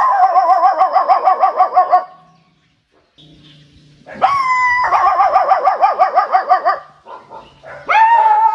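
Dog-like whining calls, each a held note breaking into a fast, even warble. The call comes twice with a pause between, and a third begins near the end.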